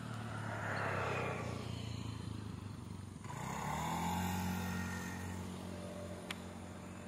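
A motor vehicle engine passing close by: a steady hum with two swells of louder engine and tyre noise, and the engine revving up about three seconds in, then holding a higher, steady pitch.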